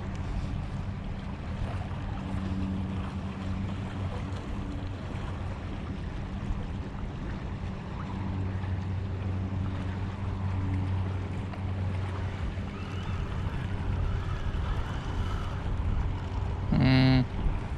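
A boat engine's steady low hum, with wind and water noise. A short, loud, pitched tone sounds once near the end.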